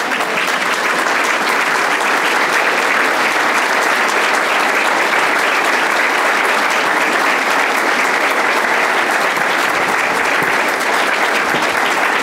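A large seated audience applauding steadily, a dense, even clapping that holds throughout.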